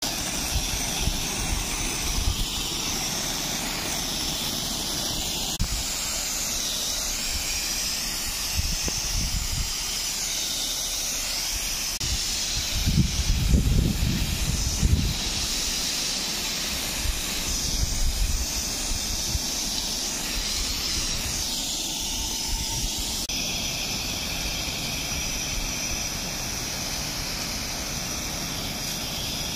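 High-pressure spray hissing steadily from the nozzle of a tractor-mounted sprayer's spray lance as it atomises liquid into a fine mist, with irregular low rumbling bursts that are strongest about halfway through.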